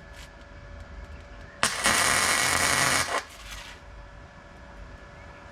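MIG welder arc crackling for about a second and a half as a short weld is laid on the thin sheet steel of a car sill.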